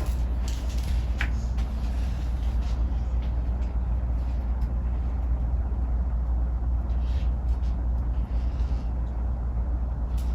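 Room tone during a silence: a steady low hum or rumble with a few faint clicks and rustles.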